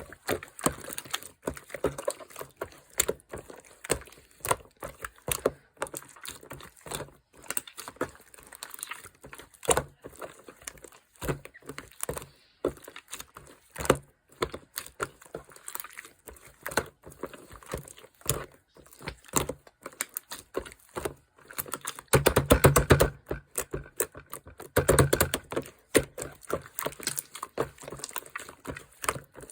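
Slime being pressed, stretched and squished by hand, making a stream of sticky clicks and small air-bubble pops. It comes in two busier, louder runs of rapid popping in the last third.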